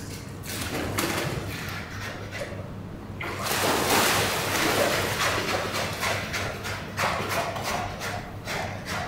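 Polar bear cub diving into a pool: a splash a little over three seconds in, then water sloshing with scattered smaller splashes.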